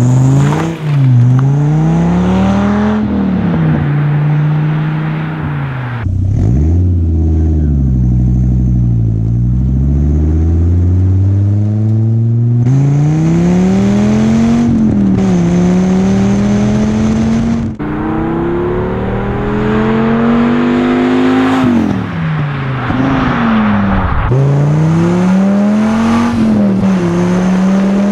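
1993 Dodge Viper's 8.0-litre V10 running through a Magnaflow exhaust, its revs climbing and falling again and again.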